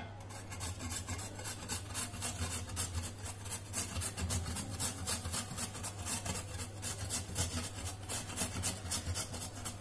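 A peeled raw potato grated by hand on a flat stainless-steel grater: a steady run of quick rasping strokes as it is rubbed up and down the blades.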